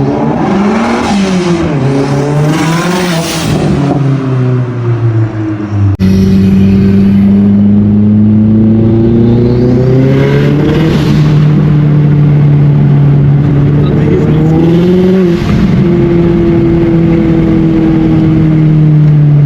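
Turbocharged 2.3-litre four-cylinder engine of a Gen1 Mazdaspeed3 driving, revving up and down in the first few seconds. It then pulls steadily, its pitch rising slowly twice and dropping sharply about fifteen seconds in.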